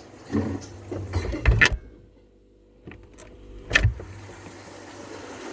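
A phone being handled and set inside a refrigerator: knocks and rustles, then a thud as the fridge door shuts, after which everything goes muffled and nearly silent. About a second later come more knocks and a louder thud as the door is opened, followed by a steady low hum.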